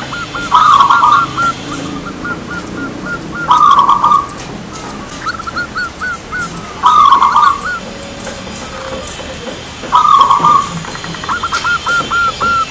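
Zebra dove (perkutut) cooing: four loud phrases about three seconds apart, each a short dense burst, with runs of quick repeated notes in between.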